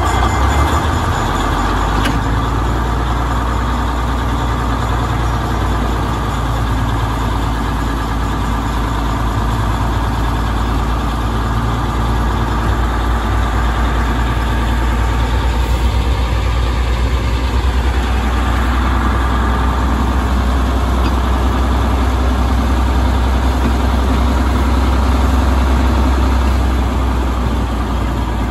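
65-ton Vulcan diesel switcher locomotive's engine running steadily with a deep, even rumble, heard up close from the locomotive's front platform as it moves along the track.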